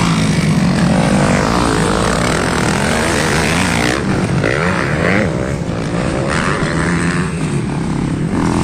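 Motocross bike engines revving hard on a dirt track, the pitch repeatedly rising and falling as the riders accelerate and shift. A steady, loud engine note runs underneath throughout.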